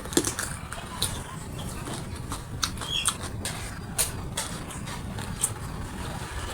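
Close-up eating sounds: chewing with irregular wet mouth clicks and smacks over a low steady hum.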